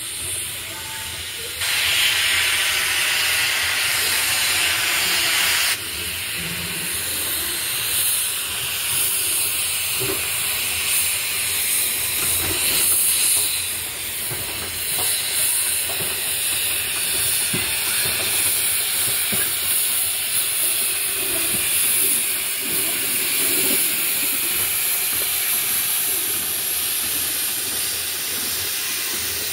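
Coffee Pot vertical-boiler steam locomotive hissing steam as it shunts a hopper wagon, with a much louder burst of steam that starts suddenly about two seconds in and cuts off about four seconds later. Scattered clanks and knocks from the moving wagon and running gear follow over the steady hiss.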